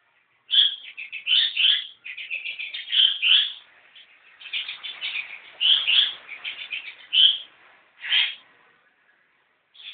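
Long-tailed shrike singing a fast run of sharp chirps and scratchy chattering notes, with short pauses between phrases and a clear final chirp about eight seconds in.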